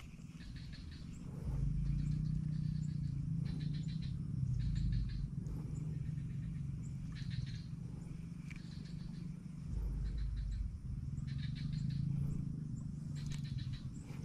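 Frogs calling in a marsh: a low droning chorus that swells and eases in long stretches, with short rapid higher trills breaking in now and then.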